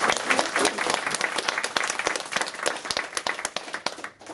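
A roomful of people applauding, a dense patter of many hands clapping that thins out and dies away near the end.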